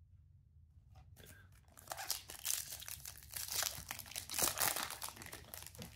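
A foil-lined plastic Topps Chrome trading card pack wrapper being torn open and crinkled by hand: faint rustling about a second in, then dense crackling from about two seconds in until near the end.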